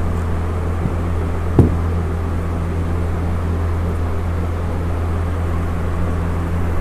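A steady low hum with one sharp knock about one and a half seconds in.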